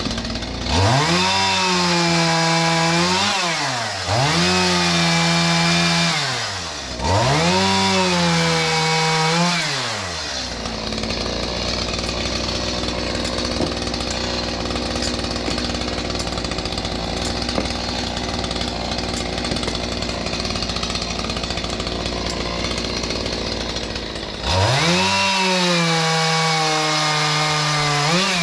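A chainsaw speeds up to full revs and holds for two to three seconds, then drops back, three times in a row. A steadier, lower running sound follows, and near the end it revs up once more and holds.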